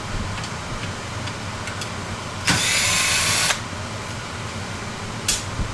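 A power drill/driver runs for about a second, backing out one of the screws that mount the box fan's motor, with a sharp click near the end and a low steady hum underneath.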